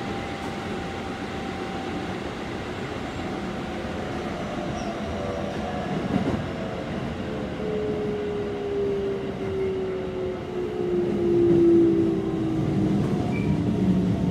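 Keikyu 600 series train's Mitsubishi GTO-VVVF traction inverter and motors whining, heard from inside the passenger car: several tones fall slowly in pitch as the train slows, over the steady rumble of the wheels on the track.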